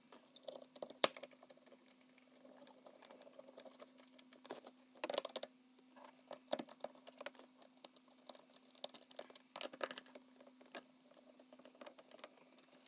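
Scattered, irregular clicks and taps of a hand tool on the shifter assembly's mounting bolts as they are run down snug, over a faint steady hum.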